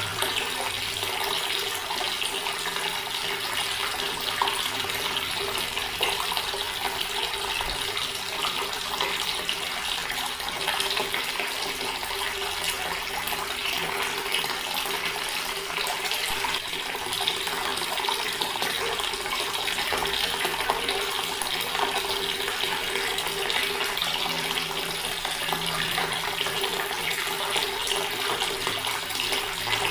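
Water running steadily from a tap, an even rushing flow with no breaks.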